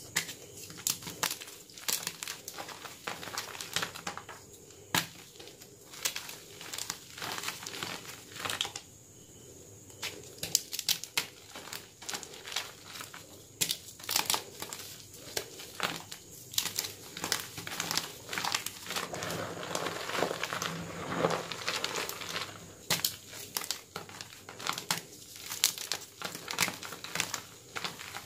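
Homemade gym chalk blocks crushed and squeezed in bare hands in loose chalk powder: a run of dry, crumbly crunches and crackles, denser for a few seconds about two-thirds of the way through.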